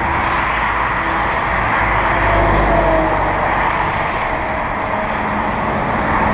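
Steady rush of motor-vehicle noise, engine and road noise running evenly with no distinct impacts.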